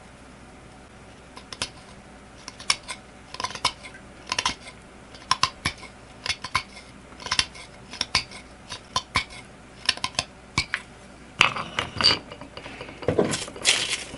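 A thin CPM S125V steel knife edge whittling an elk antler tip: short, sharp scraping strokes, about one or two a second after a quiet start, coming faster and louder near the end.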